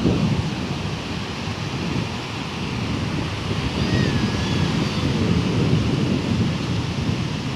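Wind buffeting the microphone over the wash of sea surf, a steady low rumble with no break.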